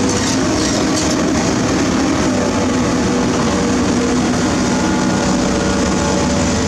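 Komatsu PC210 hydraulic excavator's diesel engine running loud and steady, with a constant low hum and tone and no revving.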